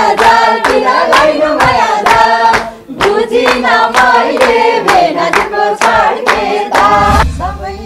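Several voices singing a Nepali dohori song together, with steady hand clapping in time, about three claps a second. The clapping stops near the end while the singing carries on.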